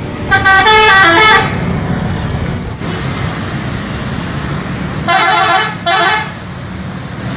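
Tour bus multi-tone musical horn (Indonesian "telolet" horn) playing a quick run of stepped notes for about a second, then again a few seconds later in two short bursts, over bus engine and road traffic noise.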